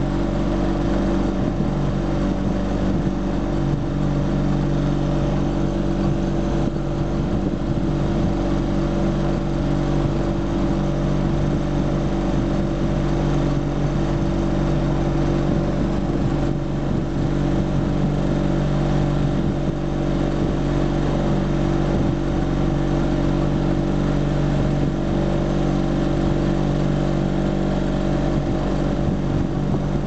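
Bell Seagull 29 sailboat's engine running steadily under way, its pitch and level unchanging.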